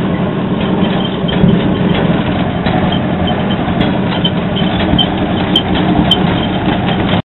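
Engine of a 1941 International two-ton truck with exhaust stacks running steadily, heard from inside the cab, with light clicks and rattles over it. It cuts off abruptly near the end.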